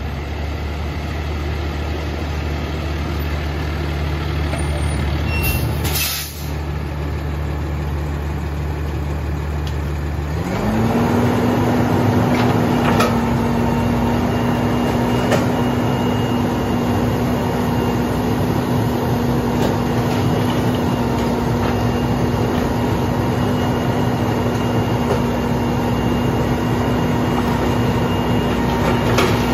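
Grapple truck's diesel engine idling, then about ten seconds in it speeds up and holds a steady higher speed, with a faint steady whine over it, as the knuckle-boom grapple loader's hydraulics go to work. There is a short hiss about six seconds in.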